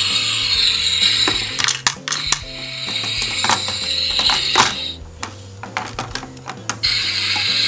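Battery-operated toy frying pan playing a steady hissing sizzle sound effect, which stops about two-thirds of the way in and starts again near the end. Sharp plastic clicks and knocks come from the pan and toy pieces being handled.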